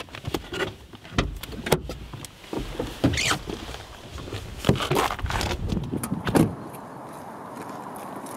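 A run of clicks and knocks over a low rumble. The rumble stops about six and a half seconds in and gives way to a steady hiss of outdoor ambience.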